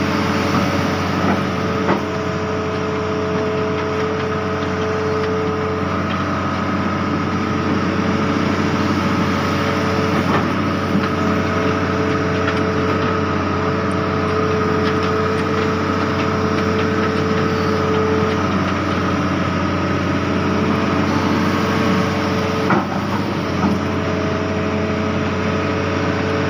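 Diesel engine of a Hitachi Zaxis 210F amphibious excavator running steadily, with a steady whine over a low drone, heard from the operator's cab. A few brief knocks sound now and then.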